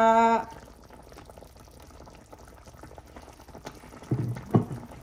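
Vinegar poured from a bottle into a pan of simmering fish broth, over a soft steady bubbling. A short held vocal note opens it, and a couple of dull knocks sound near the end.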